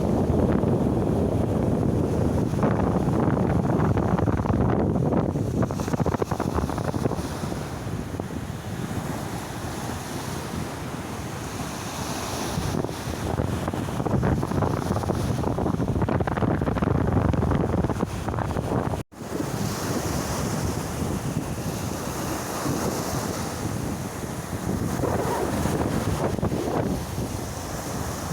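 Black Sea surf washing in and out, swelling and easing, with wind buffeting the microphone. The sound cuts out for an instant about two-thirds through.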